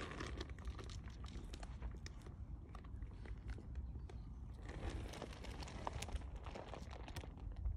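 Light footsteps and small crunches on gritty pavement scattered with dry leaves, as a series of irregular faint clicks over a steady low rumble on the microphone.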